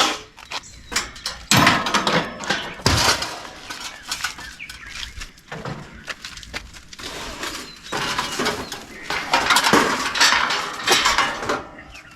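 Sheet-metal and wire parts of an old central air-conditioner condenser unit clattering, rattling and scraping in irregular bursts as the unit is pulled apart by hand for scrap.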